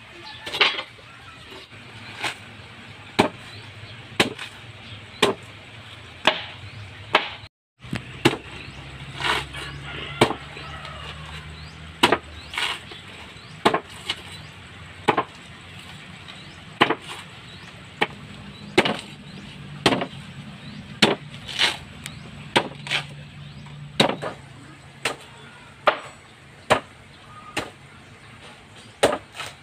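Blade chopping through a banana trunk (pseudostem), slicing it into thin pieces: sharp chops about once a second.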